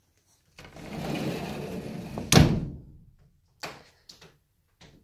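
A sliding flyscreen door rolled along its track for about two seconds, then banging against its frame, the loudest sound here. A few faint clicks follow.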